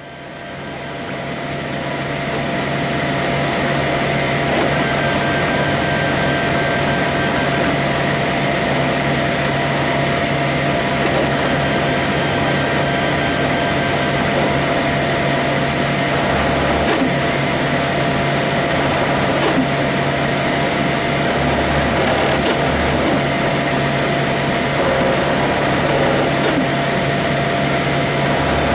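Flashforge Dreamer 3D printer running a print: a steady hum of its cooling fans with the stepper motors whirring in short, changing tones as the print head moves.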